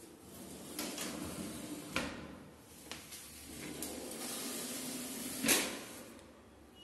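Kitchen cabinet drawer with a stainless steel wire basket being slid in and out on its runners, with a sharp knock about two seconds in and a louder knock about five and a half seconds in as the drawer hits the end of its travel.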